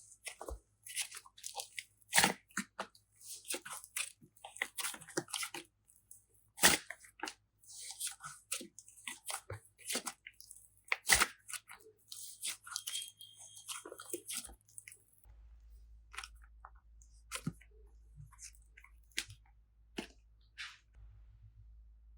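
Hands working slime: wet clicks, crackles and crunchy squelches come in quick irregular bursts, then thin out to scattered clicks about two-thirds of the way through.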